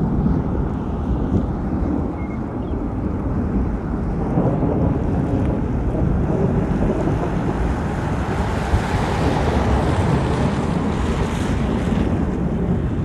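Strong wind buffeting the microphone: a steady low rumbling noise of gusts that grows stronger and brighter about eight seconds in, then eases near the end.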